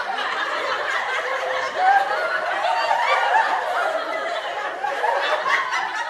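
Many parrots chattering and chirping at once: a dense, unbroken babble of short warbling calls.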